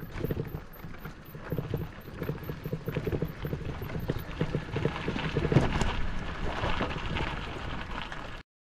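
Footsteps walking steadily along a path, a quick regular run of steps. The sound cuts off suddenly near the end.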